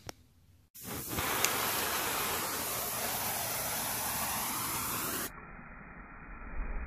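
Compressed air hissing steadily from a dust-fuel feed line in front of a propane torch flame. It starts suddenly about a second in. After a cut near the end comes the low, growing rumble of the powdered fuel burning as a fireball.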